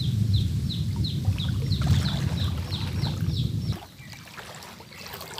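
A bird's short descending chirp repeats about three times a second over a low rumble. Both cut off abruptly about four seconds in, leaving faint sloshing of floodwater.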